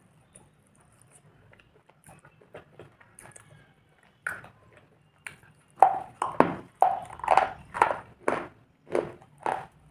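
A person chewing a mouthful of black slate bar, crisp crunches close to the microphone. Faint and scattered at first, then from about six seconds in a steady run of loud crunches about two a second.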